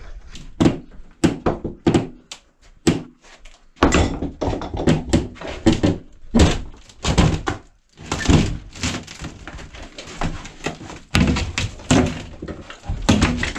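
Plywood wall panel being wrenched off its framing, with many irregular knocks and thuds.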